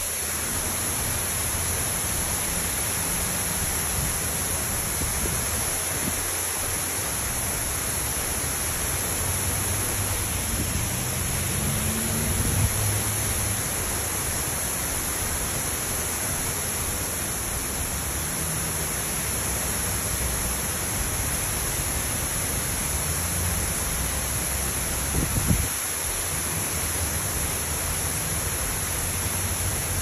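Steady rushing roar of water sheeting down the tall walls of the Gerald D. Hines Waterwall fountain, with a brief knock about 25 seconds in.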